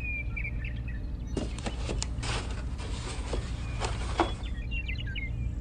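Small birds chirping in short high calls at the start and again near the end. In between comes a run of light taps and rustles from a corrugated cardboard roof being handled and set in place.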